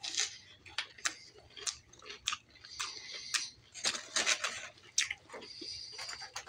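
A person chewing battered fried fish and french fries close to the microphone, with irregular wet mouth clicks and smacks.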